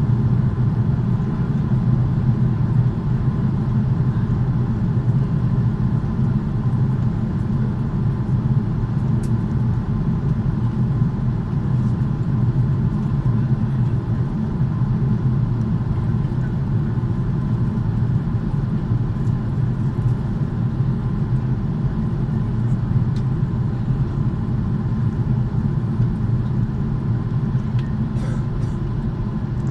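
Steady cabin noise of a jet airliner in flight: a constant low rumble of engines and rushing air, with a faint steady whine above it.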